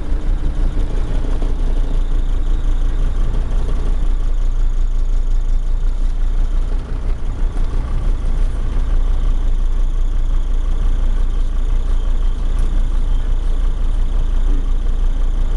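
Vehicle engines running steadily with a strong low rumble, heard from inside a minibus cabin on a dirt construction road beside a padfoot roller.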